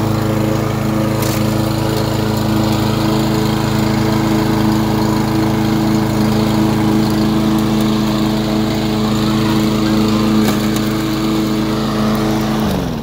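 Craftsman M260 walk-behind gas lawn mower engine running at a steady speed, then winding down and stopping near the end as it is shut off.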